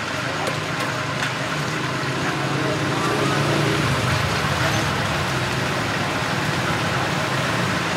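Steady street traffic noise, with a slight swell around the middle, and a couple of faint clicks about half a second and a second in.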